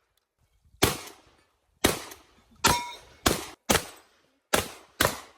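Shotgun fired seven times in a quick, uneven string, the shots about half a second to a second apart, each trailing off briefly.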